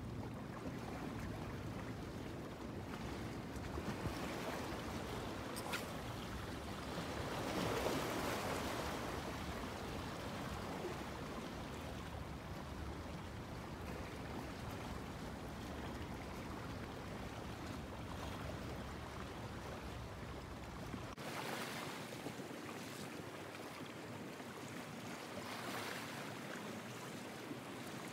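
Steady wind and sea noise, with wind rumbling on the microphone; the low rumble drops away suddenly about three-quarters of the way through, and the noise swells briefly about a third of the way in.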